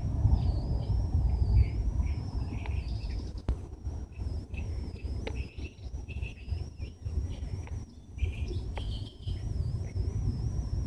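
Small birds chirping now and then over an insect's continuous high-pitched trill that wavers slightly in pitch, with a low rumble underneath.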